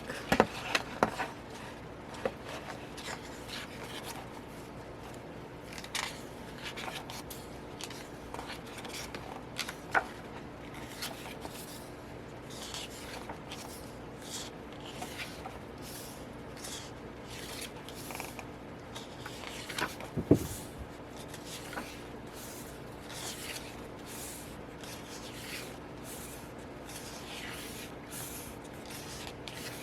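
Pages of a glossy album photo book being turned and handled: repeated brushing and rustling of paper, with a few sharper ticks as it is shifted, the loudest about twenty seconds in.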